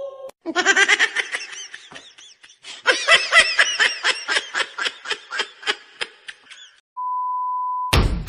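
High-pitched laughter: a quick run of short repeated 'ha' pulses lasting about six seconds. It is followed near the end by a steady beep tone of about a second.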